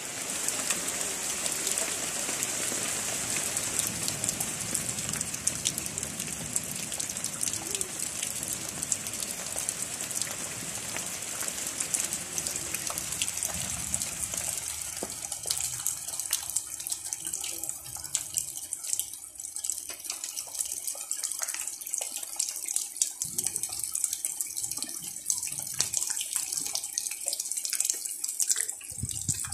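Heavy storm rain falling, a dense hiss of countless drops. About halfway through the fuller rush drops away, leaving a sharper patter and dripping of raindrops.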